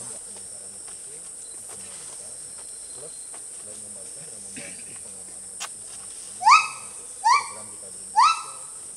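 Steady high-pitched drone of forest insects throughout. In the last third, three loud short calls rise in pitch, each repeating about a second after the last.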